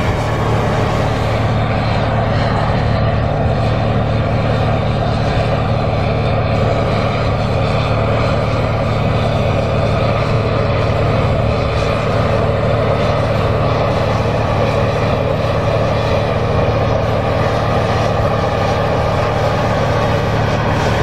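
John Deere 8R tractor's diesel engine running steadily under load as it pulls a tillage implement through the ground: a deep, even drone with no change in pitch.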